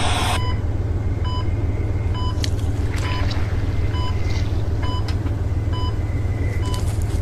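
A hospital heart monitor beeps about once a second over a steady low hum. A few soft rustles of paper being handled come and go.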